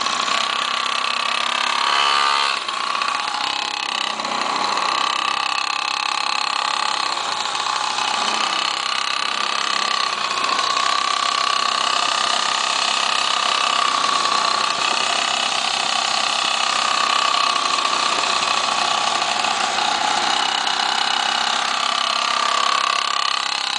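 Pocket quad's small engine running at high revs as the mini ATV is ridden, a steady high-pitched buzz whose pitch wavers gently with the throttle, with a brief dip about two seconds in.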